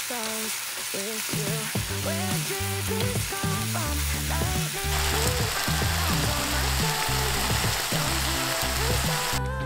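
Ground beef taco filling sizzling in a frying pan as it is stirred with a wooden spoon, being cooked down until little liquid is left. The sizzling cuts off just before the end, with background music throughout.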